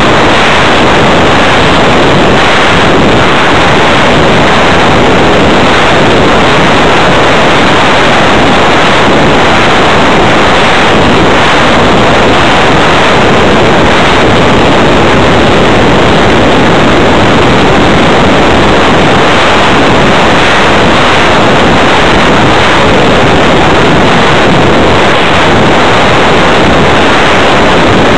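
Loud, steady rush of air over a small camera riding on an RC flying-wing plane in flight, with the electric motor and propeller noise lost in it.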